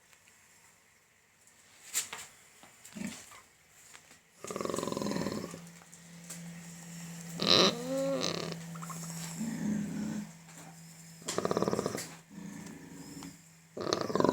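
Pet pig grunting and squealing in five or so separate bursts while its teeth are being checked, the loudest, with a bending pitch, near the middle. A faint steady low hum runs underneath from about five seconds in.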